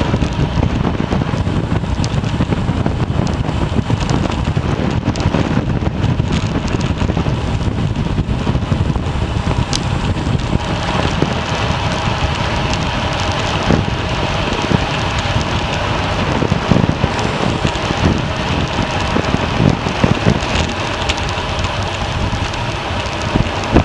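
Wind rushing over the microphone of a camera on a moving bicycle: a steady noise with a few faint clicks.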